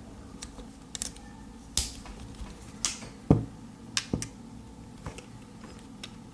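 Scattered clicks and taps of two pocket knives being handled, about nine in all, with one heavier, duller knock just over three seconds in.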